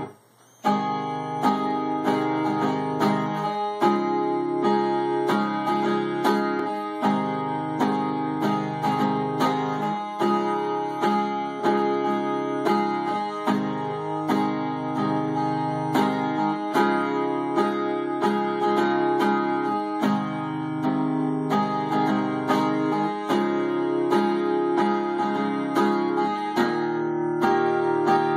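Steel-string acoustic guitar played solo, picking a repeating chord pattern with the chord changing every two to three seconds. It begins after a brief break about half a second in.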